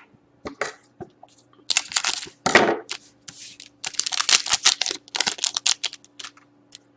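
Foil wrapper of a Totally Certified hockey card pack being torn open by hand. It makes a run of crinkling and tearing from about two seconds in to about six seconds.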